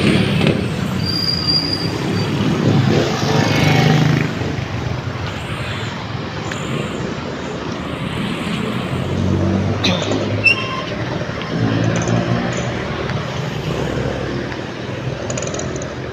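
Road traffic passing close by on a busy street: motorcycle and car engines rising and fading as they go past, over steady tyre noise. A brief high squeal about a second in and a sharp click about ten seconds in.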